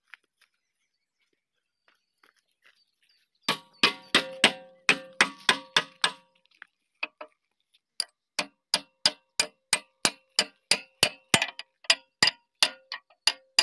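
Hammer blows on steel, driving the bucket pivot pin through the JCB 3DX backhoe's bucket linkage with a steel drift rod, each strike a ringing metallic clang. After about three quiet seconds comes a quick run of blows, then a short pause, then steady blows about three a second.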